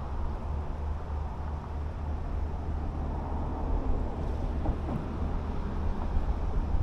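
Wind buffeting the microphone outdoors: a steady, fluttering low rumble with a faint wash of noise over it.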